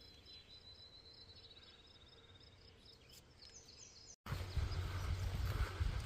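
A songbird calling in the woods, a faint high chirp repeated evenly with a short trill. About four seconds in, a sudden cut to louder rustling with a low rumble.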